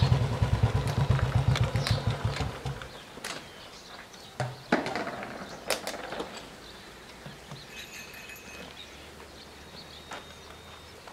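Motorcycle engine running with a rhythmic low pulse as the bike rolls up and stops; the engine cuts out about three seconds in. A few sharp clicks and knocks follow.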